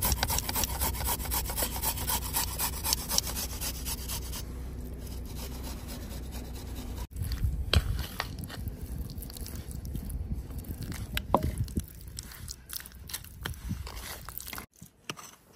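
A garlic clove rasped on a metal hand grater over a wooden bowl in quick repeated strokes. About seven seconds in it changes to a wooden fork scraping and clicking against a wooden bowl as raw chicken pieces are mixed with marinade.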